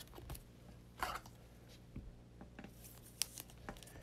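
Faint rustling and a few light ticks of trading cards being handled and shuffled between the fingers, with a slightly louder rub about a second in.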